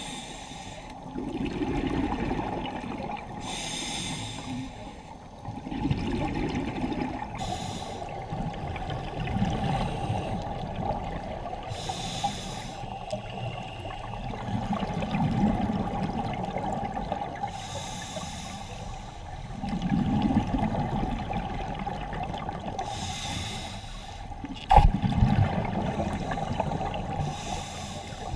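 Scuba diver breathing through a regulator underwater: a hissing inhale, then a bubbling rush of exhaled air, repeating about every five seconds over a steady hum. A single sharp knock near the end.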